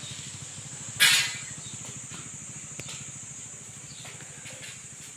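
Outdoor ambience: a steady, high-pitched hiss over a low, even rumble, with one short, loud hiss about a second in.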